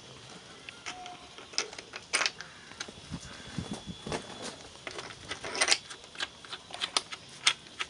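Irregular light clicks and taps of small metal parts being handled, as a nut is worked onto a threaded rod by hand, with a couple of short scrapes about two and six seconds in.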